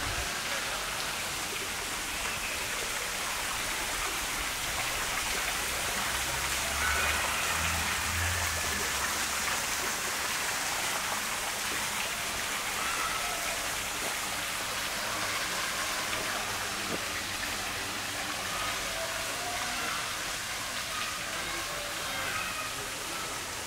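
Steady splashing hiss of running water from a stone fountain, with faint distant voices and a brief low rumble about seven seconds in.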